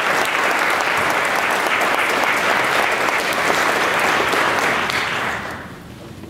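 Audience applauding: dense clapping that dies away about five and a half seconds in.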